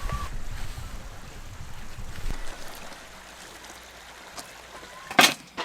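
Wind buffeting the microphone as a low rumble that dies down after about two seconds, leaving a soft hiss. A sharp knock near the end.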